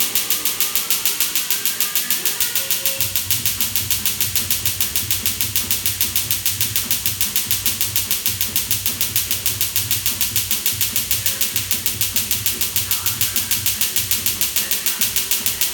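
Tattoo-removal laser handpiece firing a steady train of sharp snapping pulses, about five a second, as it is worked over the tattoo. A low hum comes in about three seconds in.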